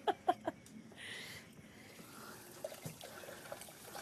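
Faint sloshing and trickling of butter tea in a wooden tea churn, with a few small knocks. A woman's laugh trails off at the very start.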